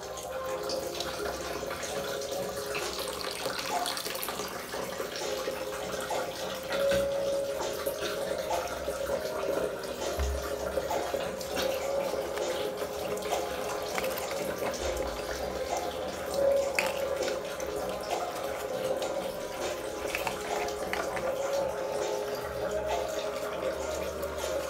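Running, splashing water, steady throughout, with many small clicks and drips.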